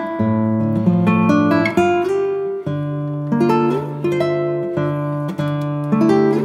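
Background music played on acoustic guitar, a steady run of picked and strummed notes.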